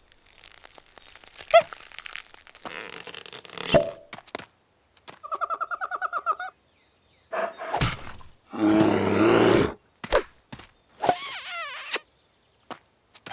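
A string of cartoon sound effects: scattered knocks and thuds, a rapid warbling trill about halfway through, then a loud rough burst, and near the end a high hiss with falling whistles.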